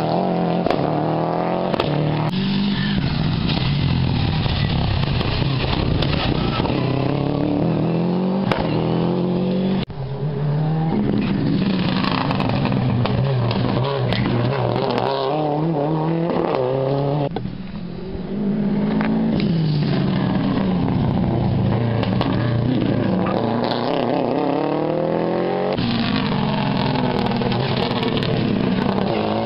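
Rally cars passing at speed one after another, the first a Subaru Impreza. Engines rev hard, rising in pitch through gear changes and dropping as they brake. The sound jumps abruptly from one car to the next four times.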